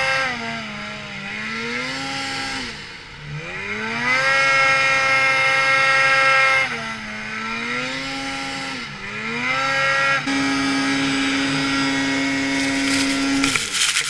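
Snowmobile engine revving up and easing off several times, its pitch climbing, holding high for a couple of seconds, then dropping. Near the end it holds steady at a lower pitch, then cuts off suddenly.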